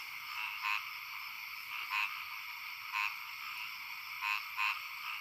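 Frogs croaking: about six short rattling croaks at uneven spacing, a few in quick pairs, over a steady high-pitched background chorus.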